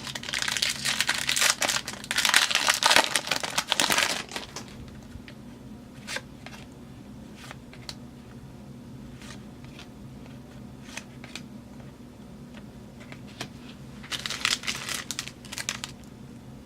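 A football card pack's wrapper being torn open and crumpled, crinkling loudly for about four seconds. Then softer scattered ticks of the cards being handled, and another short burst of wrapper crinkling near the end.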